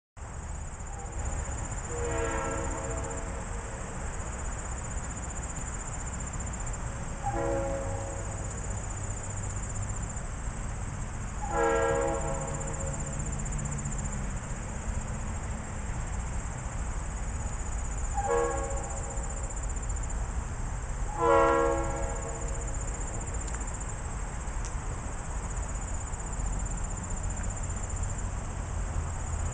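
Air horn of Ann Arbor Railroad diesel locomotive 2368, out of sight, sounding five chord blasts, three long and two short. A steady high insect drone and a low rumble run underneath.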